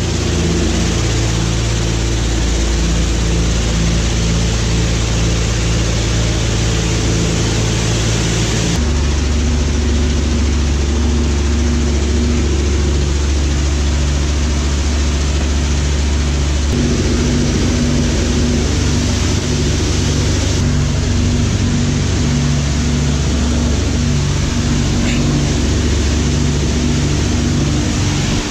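Loud, steady drone of a B-25 Mitchell bomber's twin radial engines heard from inside the fuselage, pulsing regularly about twice a second over a broad rush of noise. The tone of the drone shifts abruptly a few times.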